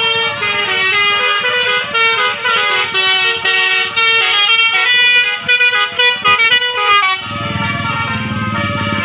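Bus "telolet" Basuri air horn playing a quick melody of shifting multi-note tones. About seven seconds in the horn stops and a vehicle engine is heard running.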